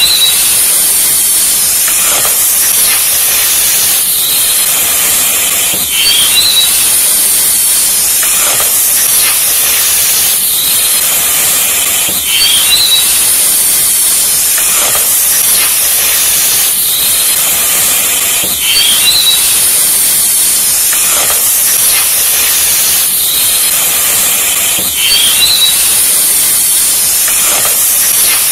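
Loud, steady hissing like steam or sizzling, a short loop repeating about every six seconds, each repeat marked by a faint high rising chirp.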